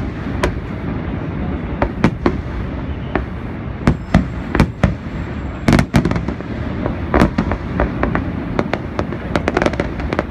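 Fireworks display: aerial shells bursting in many sharp bangs at irregular intervals, some in quick clusters, over a steady rushing background noise.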